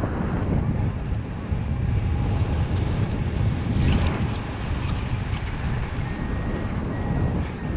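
Airflow buffeting the camera's microphone during paraglider flight: a steady, low-pitched rush of wind noise.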